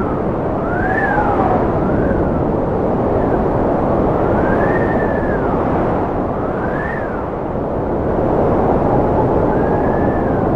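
Strong cold wind blowing in a steady loud rush, with howling whistles that rise and fall in pitch every second or two.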